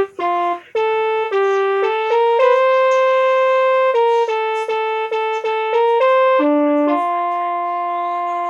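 Casio CTK-520L electronic keyboard playing a single-note melody in a piano-like voice. A run of short notes gives way to a long held note near the end.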